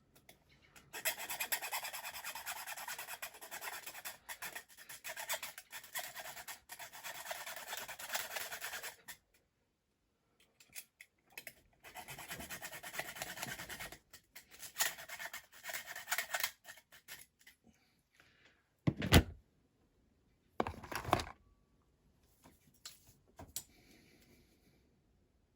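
A small hand tool rasps back and forth against a small model part as its ends are cut off, in two long runs. Two short knocks follow near the end.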